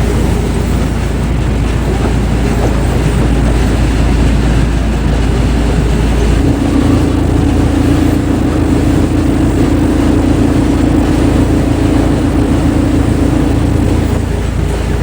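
Heavy machinery running loudly and steadily, with a steady hum joining about six seconds in and fading out near the end.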